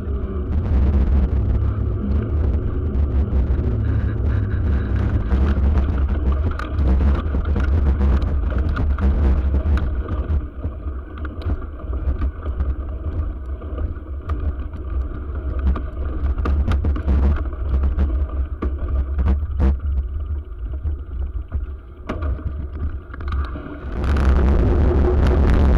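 Steady low rumble of wind and rolling noise on a bicycle-mounted camera during a ride, with frequent clicks and knocks from bumps. The rumble turns suddenly louder near the end.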